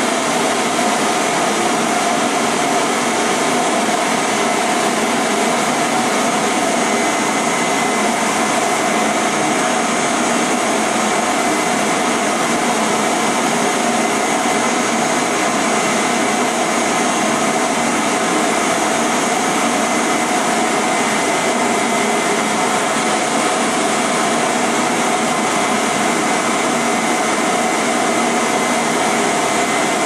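Vacuum cleaner motor hum mixed with white noise, running steady and unchanging as one continuous hiss with a faint whine in it.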